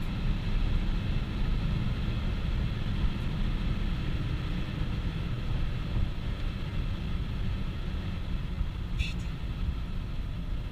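Inside the cabin of a BMW 320i (E90) at high motorway speed: a steady, loud low rumble of road and wind noise with a faint even engine drone from its four-cylinder petrol engine. A brief high-pitched sound comes about nine seconds in.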